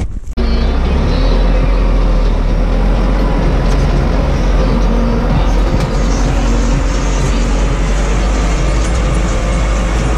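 Front-loader farm tractor's engine running under way, heard from inside the cab: a loud, steady low drone that starts abruptly about half a second in.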